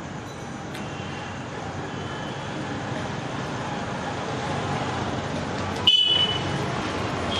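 Steady street traffic noise that grows slowly louder, with a sudden sharp sound about six seconds in followed by a brief high ringing tone.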